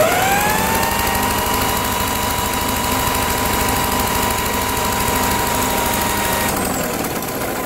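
A motor runs at a steady high whine after spinning up, then winds down and stops near the end. The whine comes from the non-running Briggs and Stratton lawnmower engine being spun over to check for spark.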